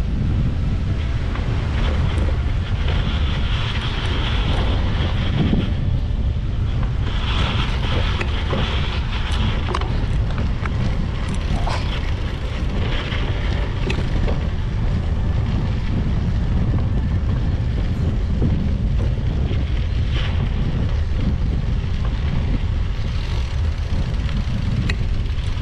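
Wind buffeting the microphone: a steady, loud low rumble, with fainter hiss and a few faint clicks above it.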